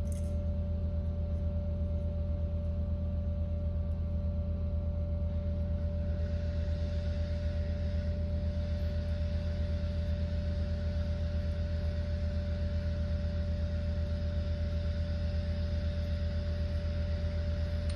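A steady low hum with a constant higher tone above it, unchanging throughout, with no distinct tool or handling sounds.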